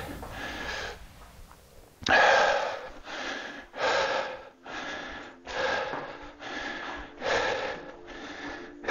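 A man panting hard, catching his breath after a tiring set of arm exercises. After a short lull, heavy breaths come about one a second from about two seconds in.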